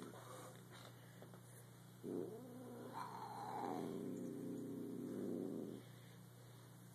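A pet sniffling: one long bout of about four seconds starting about two seconds in, after the end of an earlier bout at the very start.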